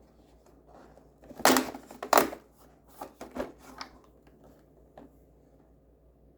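Cardboard and plastic packaging of a miniature-toy advent calendar being pried open by hand: two loud sharp cracks about one and a half and two seconds in, then a few lighter clicks and crinkles.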